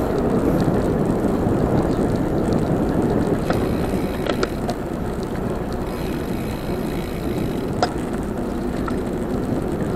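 Wind rushing over the microphone and tyres rolling on asphalt as a bicycle rides along at a steady pace, with a few light clicks.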